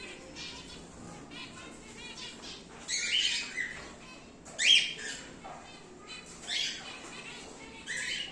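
Cockatiels calling in an aviary: a steady background of many small chirps, with four louder calls cutting through, the loudest about halfway.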